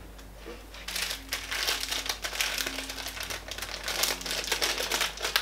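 Plastic sweets bag crinkling as it is handled in the hands, starting about a second in and going on in rapid crackles.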